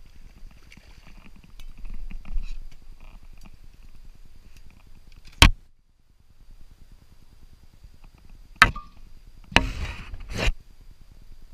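Handling noise as a redfish is landed and unhooked by hand: a low rubbing rumble, with a sharp knock about five seconds in, another near nine seconds, and a short rasping burst between two knocks about ten seconds in.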